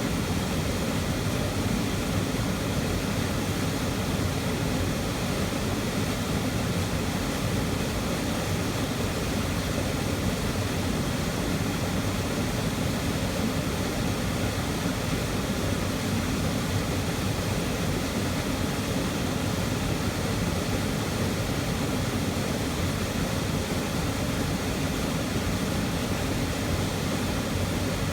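Waterfall close by, a steady loud rush of falling water with no change.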